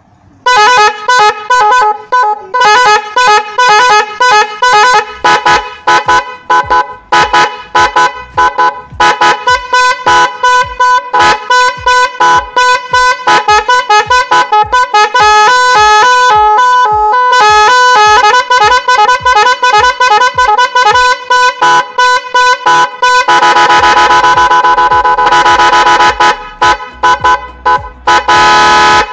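Eight-tone electronic musical car horn playing a tune: a long, loud run of short, quickly changing notes. For the last five or six seconds it holds one unbroken sound, then cuts off suddenly.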